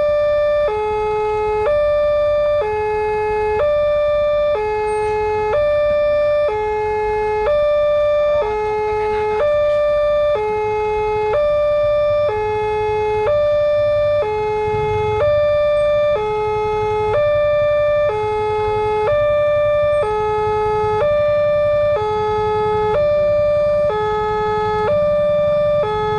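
Electronic two-tone alarm of a railway level crossing, alternating steadily between a higher and a lower tone about every 0.8 seconds, warning that a train is approaching and the barrier is down. A low rumble underneath grows towards the end.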